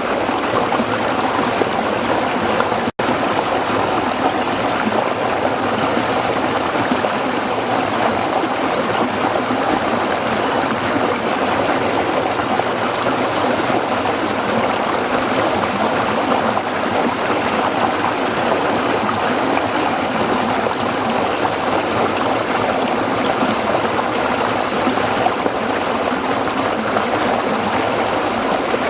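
Waterfall water rushing and splashing in a steady, even wash, with a momentary dropout about three seconds in.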